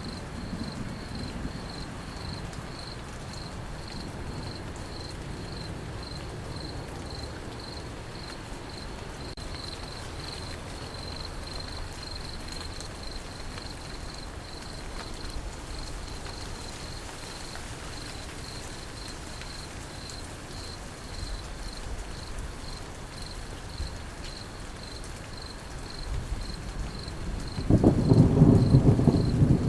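Steady rain falling, with crickets chirping in an even pulse about twice a second. A low roll of thunder fades in the first seconds, and a loud rumble of thunder breaks in near the end.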